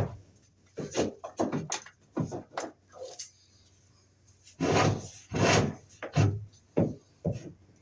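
Two-wire Romex cable being pulled through a hole in the wall, its sheathing scraping against the edge in a run of short rasping strokes, with two longer pulls about five seconds in.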